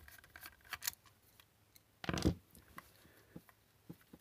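Faint clicks and scrapes of a screwdriver and hands working the screws and plastic case of a Wi-Fi smart plug, with one louder knock about two seconds in.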